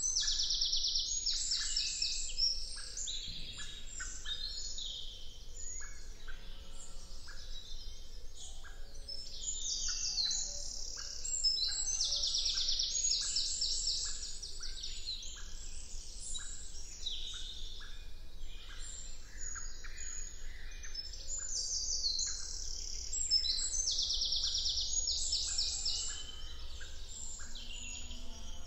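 Chorus of many songbirds singing at once, among them a loud, fast trilled song that comes back about every twelve seconds.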